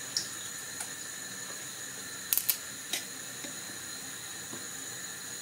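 A few short, light clicks and knocks from hands packing dill and cucumbers into a container, including a quick double click about halfway, over a steady faint hiss.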